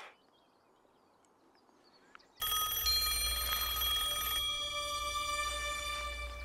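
A phone rings suddenly about two and a half seconds in after a quiet start: sustained, chiming high tones that shift in pitch every couple of seconds, over a low hum.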